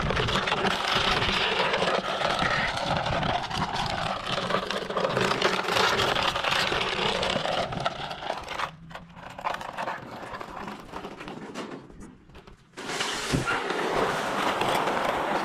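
Plastic crate scraping and grinding along rough concrete as it is dragged by a rope, a continuous gritty scrape that eases off to a quieter stretch in the middle before picking up again.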